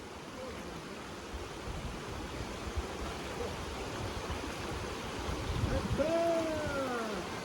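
Valley stream water flowing with a steady rushing hiss. About six seconds in, a short high call rises and falls over it.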